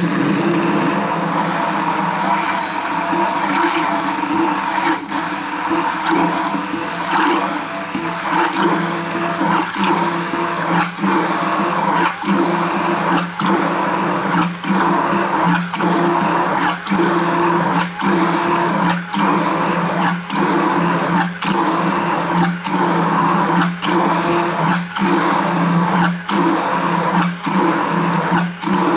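Stick hand blender running steadily in a wide-mouth quart glass jar, emulsifying olive oil, lemon juice, garlic and salt as they thicken into a creamy dressing. It starts at once, and from about five seconds in its sound dips regularly, roughly one and a half times a second.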